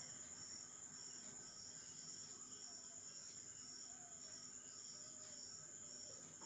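Near silence with faint crickets chirping: a thin high pulse about twice a second over a steady high-pitched drone.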